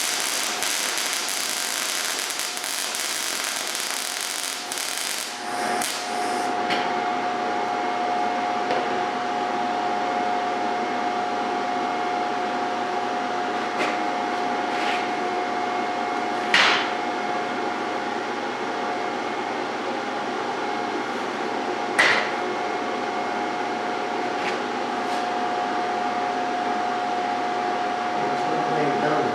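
MIG welder arc crackling for about the first five seconds, then a steady machine whine with a noisy bed and a few sharp clicks for the rest.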